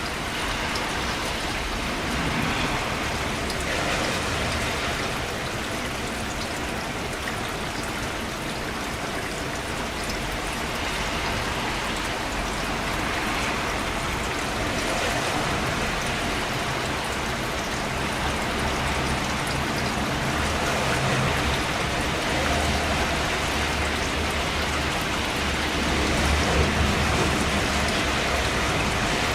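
Steady rainfall, a dense even patter of drops on surfaces, with a low rumble underneath that grows stronger in the second half.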